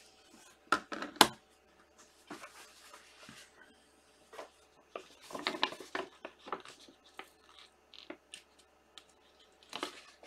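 Hands handling trading cards and a hard plastic card holder on a tabletop: two sharp clacks about a second in, then rustling, scraping and light taps.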